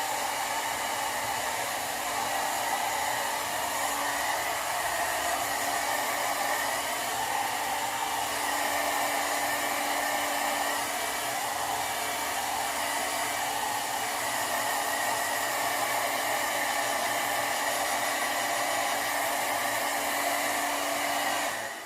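Sharp IB-WX1 hair dryer running at its default maximum airflow, a steady rush of air, switched off just before the end.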